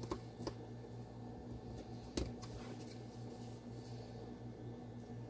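A few small clicks and taps of folding-knife parts and screws being handled during reassembly, the loudest about two seconds in, over a steady low hum.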